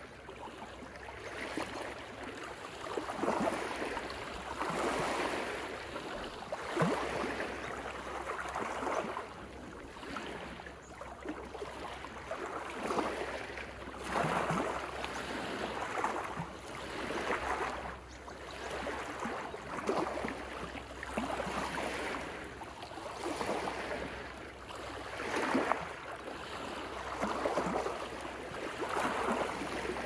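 Small waves of the Pacific lapping in over rocks and seaweed on a rocky shoreline, a rushing wash that swells and falls back every couple of seconds.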